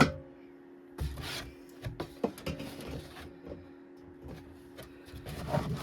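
A mini fridge being loaded by hand: its shelf is handled and aluminium soda cans are knocked and set in place. There are several sharp knocks and clicks and a rustle, over a steady low hum.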